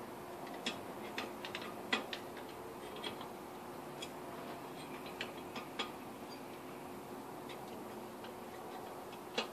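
Hand tools clicking and tapping against the metal of an engine block in sparse, irregular light strikes, bunched in the first half with one more near the end, over a faint steady hum.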